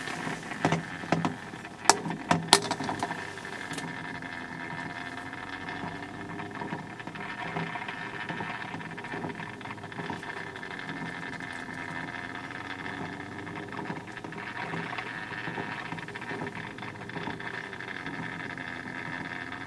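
Steady machine hum with hiss, holding several even tones, and a handful of sharp knocks about one to three seconds in.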